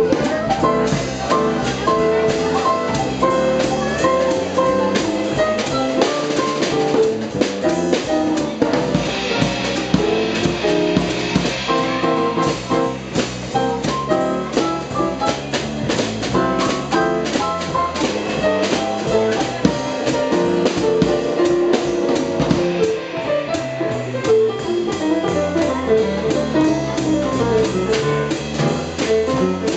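Live jazz trio playing: a Yamaha CP1 stage piano, an electric bass guitar and a Yamaha drum kit with ride and crash cymbals, swinging along steadily. Cymbal wash swells up for a few seconds about a third of the way in.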